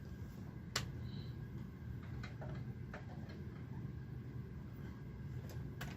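A few short, sharp clicks and knocks of knitting machine parts being handled, spread out over a low steady hum.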